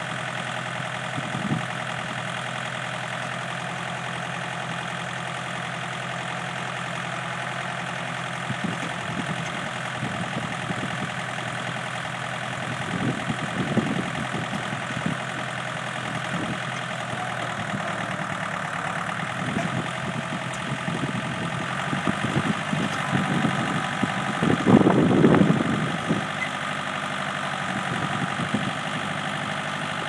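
Compact tractor's diesel engine idling steadily while it powers a Bradco 3375 three-point backhoe's hydraulics. The engine sound gets louder and rougher in short passages, about halfway through and most strongly near the end, as the stabilizers and boom are worked.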